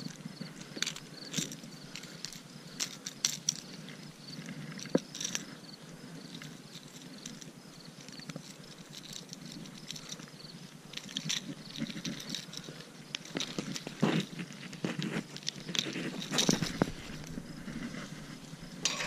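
Close handling noise: irregular clicks, taps and rustles as hands work with a small caught fish over a metal dock grating. A faint, evenly repeating insect chirp runs underneath for most of it.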